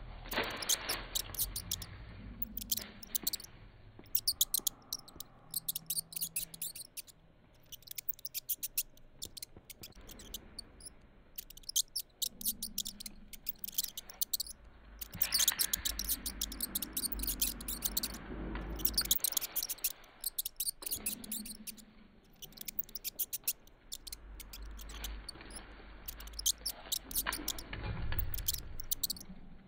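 Rat squeaking: rapid high-pitched chirps and clicks in bursts a few seconds long, with short gaps between, heard over low handling rumble.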